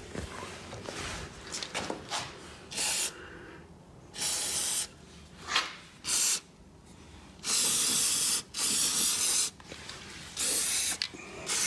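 Aerosol can of white lithium grease sprayed through its straw in about seven short hissing bursts, each up to about a second long, greasing a snowblower's drive rod, spring and gears.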